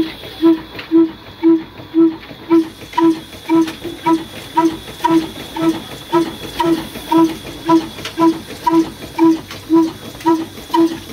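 Ruston Hornby single-cylinder horizontal diesel engine running at a slow, steady speed, its flywheel turning, with a regular exhaust beat about twice a second.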